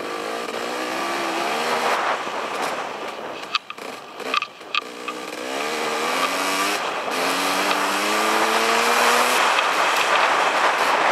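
Dirt bike engine revving up and easing off on a rough trail, its pitch climbing twice as the rider accelerates. About four seconds in the engine drops off, with a few sharp clicks and knocks. A rushing noise builds toward the end.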